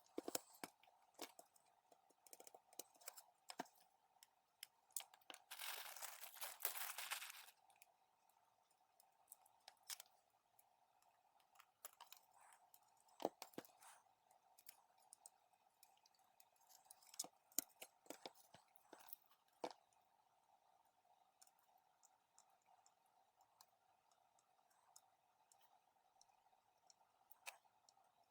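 Faint scattered clicks and small snaps of tools and components on a circuit board while capacitors are soldered in, with a hiss lasting about two seconds about six seconds in and a faint steady hum underneath.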